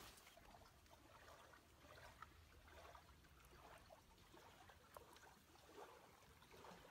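Near silence, with a few faint, soft ticks now and then.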